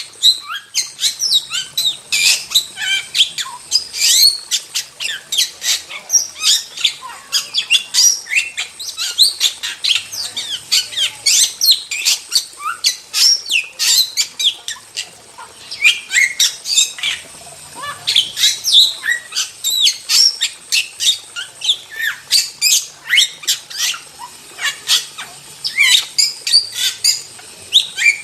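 A starling singing nonstop: a fast, dense stream of short chirps, whistles and harsh squawks, with a brief lull about halfway through.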